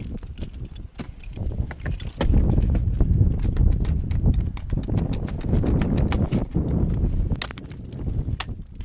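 Ice axes and crampons striking and scraping a frozen waterfall while climbing: irregular sharp knocks, several coming in quick runs, over a low rumble of movement on the body-worn camera.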